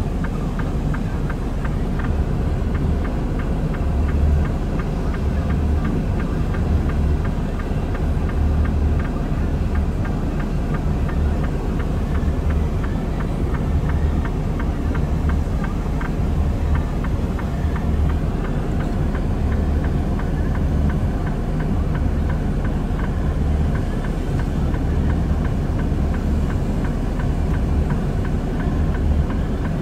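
Engine idling steadily, with a low, pulsing throb.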